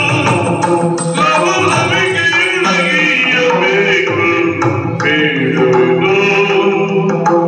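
Yakshagana singing: a sustained, ornamented vocal line with gliding pitches, accompanied by drum strokes.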